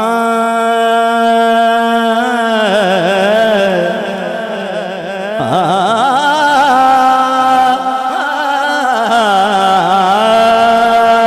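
A man singing a naat solo into a microphone. Long held notes alternate with wavering, ornamented runs, and a new phrase begins about halfway through.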